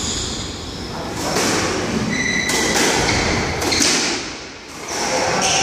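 Squash rally: several sharp hits of rackets on the ball and the ball against the court walls, with short shoe squeaks on the wooden floor.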